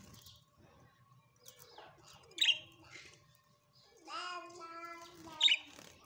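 Pet budgerigars chirping: two short sharp chirps, about two and a half seconds in and near the end, the second loudest. A longer drawn-out tone with several overtones starts about four seconds in.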